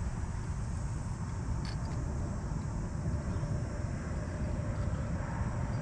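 Steady low wind noise on the microphone, with a light click about one and a half seconds in as fishing pliers work a hook free from a bass's lip.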